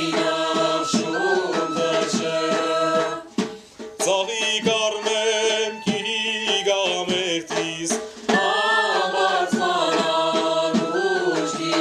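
Men singing a traditional Armenian folk ritual song together over a steady low drone, in phrases with short breaks about three and a half and eight seconds in.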